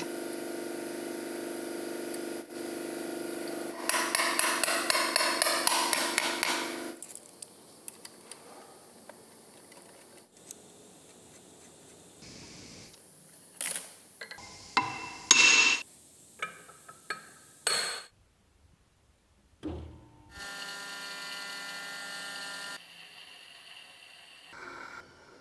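Induction motor being reassembled after a bearing replacement: metal tools click and knock on the motor's end shield and bolts in scattered strikes through the middle. Stretches of steady hum come before and after.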